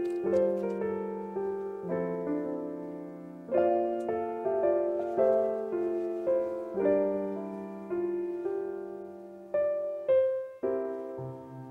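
Background piano music: chords struck one after another, each note fading before the next chord comes in about every second or two.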